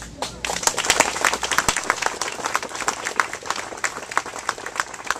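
Audience applauding, many hands clapping, starting about half a second in.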